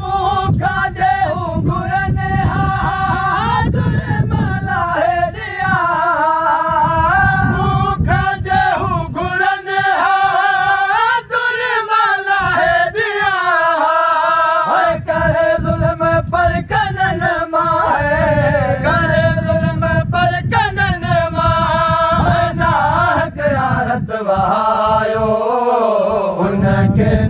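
Unaccompanied male voice chanting a Sindhi noha, a Muharram mourning lament, in long held, wavering phrases.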